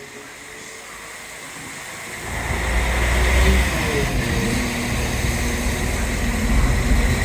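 Diesel train engine rumbling as a train approaches, coming in suddenly and loudly about two seconds in and holding steady, with a faint engine note above the rumble.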